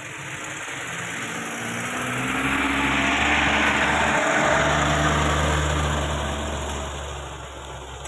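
Engine of a pickup truck loaded with oil palm fruit bunches, working through deep mud. It grows louder over the first few seconds, is loudest in the middle, then eases off near the end.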